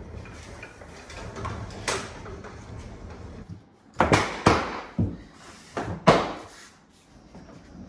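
A refrigerator rolled out over the floor with a low rumble, then four or five sharp knocks a second or two apart as luxury vinyl plank pieces are handled and pressed down on the floor by hand.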